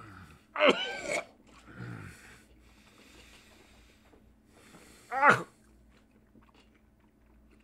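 A man's wordless disgusted noises while tasting something foul: a drawn-out groan with a wavering pitch just under a second in, a quieter one around two seconds, and a short sharp vocal noise about five seconds in.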